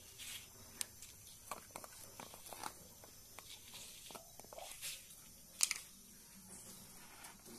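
Plastic screw cap being twisted off a jar of turmeric powder: a run of small clicks and scrapes, with one sharper click a little past the middle.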